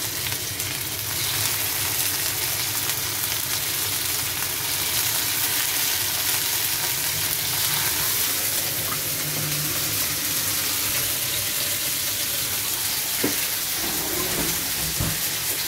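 Chicken wings frying in hot oil in a wok, a steady sizzle. A few brief knocks and rustles come near the end.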